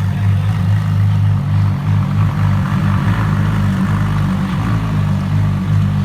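A high-performance car engine idling steadily with a deep, even note.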